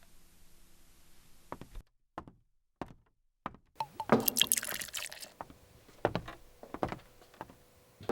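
A drink poured into a glass, loudest for about a second and a half around four seconds in, with several sharp knocks and clinks before and after it.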